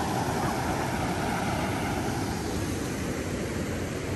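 Steady rushing of a creek running over small rapids and rock ledges.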